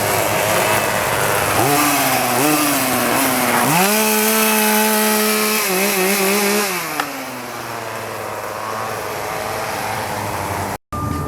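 Two-stroke chainsaw engine revving: two short blips about two seconds in, then held at high revs for about three seconds before dropping back to a lower run.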